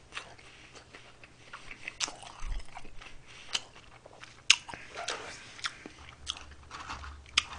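A person chewing food close to the microphone: wet mouth sounds with scattered sharp clicks and smacks about a second apart.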